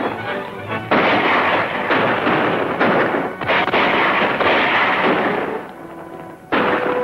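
Gunfight: repeated gunshots, each with an echoing tail, over background music.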